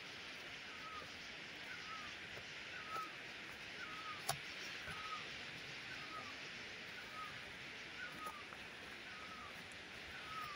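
Forest ambience: a steady high hiss with a short chirping call repeated about once a second, and a few faint clicks.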